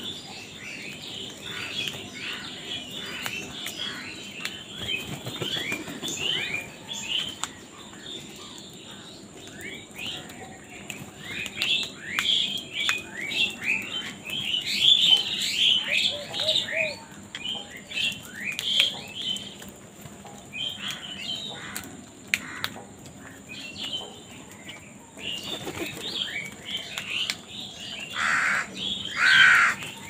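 A flock of birds calling around house crows feeding: many short chirps that slide downward in pitch, coming thickest about halfway through, with one louder, longer call near the end and wings flapping now and then.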